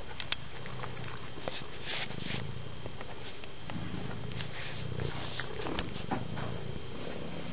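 Domestic tabby cat purring steadily close to the microphone as it settles to sleep, the purr swelling and easing with its breaths, with a few short clicks over it.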